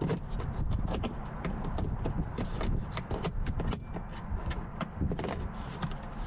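Plastic trim removal tool prying a plastic side panel off a 2020 Chevy Colorado's center console: a run of irregular clicks and snaps as the panel's clips pop loose, over a steady low rumble.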